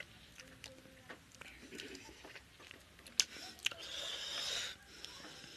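Close-up eating sounds of a person eating rice and chicken curry with his hand: scattered wet mouth clicks and lip smacks, with a sharp click about three seconds in. About four seconds in comes a hissing rush of air lasting about a second.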